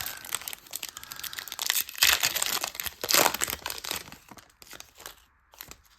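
Foil wrapper of a Pokémon Silver Tempest booster pack crinkling as it is torn open by hand, with the two loudest rips about two and three seconds in.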